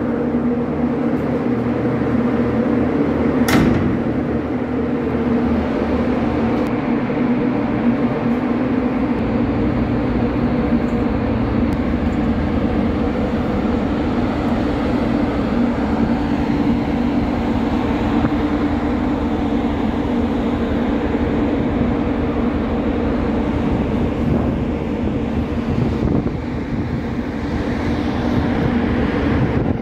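Steady drone of a ferry's onboard machinery and ventilation fans, a low rumble with a constant two-note hum. A single sharp metallic clank sounds about three and a half seconds in.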